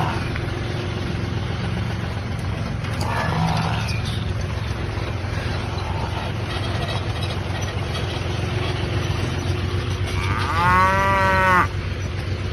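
A cow gives one loud moo lasting just over a second, about ten seconds in, over the steady low hum of an idling vehicle engine.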